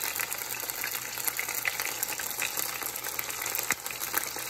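Chicken pieces frying in hot olive oil in a saucepan: a steady sizzling hiss with scattered small crackles and pops.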